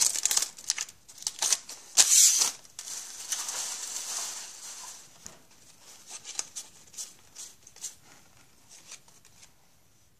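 Foil wrappers of hockey card packs crinkling and tearing as packs are ripped open, loudest about two seconds in, followed by softer rustling and scattered light ticks that die away near the end.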